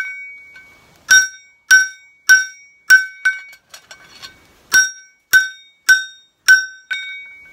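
Hand hammer striking a kitchen knife blade held in tongs on a steel anvil, each blow ringing with a clear metallic tone. The blows come steadily, about two a second, broken about halfway by a few light taps before the heavy strikes resume.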